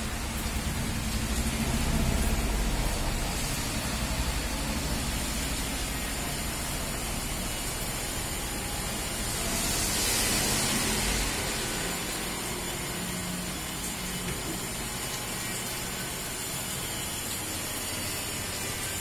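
Steady rain falling, with a low rumble in the first few seconds and a louder hiss that swells and fades about halfway through.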